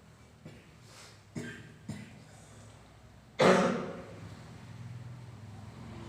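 A person coughing: a few short, softer sounds, then one loud cough about three and a half seconds in.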